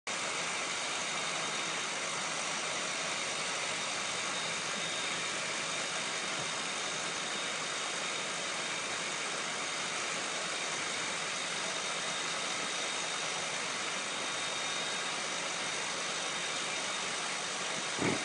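Hair dryer running steadily, a continuous rushing blow with a faint high whine. Right at the end comes a thump followed by a few quick taps.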